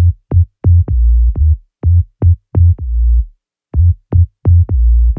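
Tech house music from a DJ mix: a stripped-down groove of punchy drum-machine kicks and deep bass notes in a syncopated pattern, with short silent gaps between hits and no vocals.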